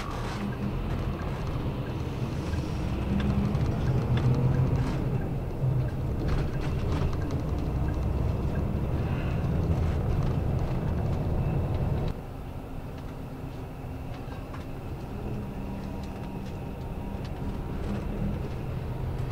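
Highway coach engine and road noise heard inside the passenger cabin. It grows louder as the bus pulls away from the toll gate and accelerates, then drops abruptly about twelve seconds in to a quieter steady rumble.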